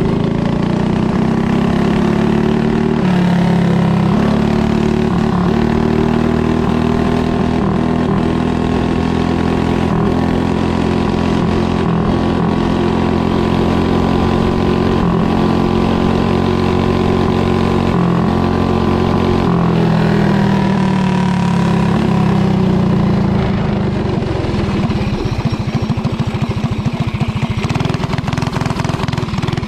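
Small go-kart engine running hard at high, fairly steady revs, its pitch shifting a little now and then. Near the end it eases off to slower, lumpier running in which the separate firing beats can be heard.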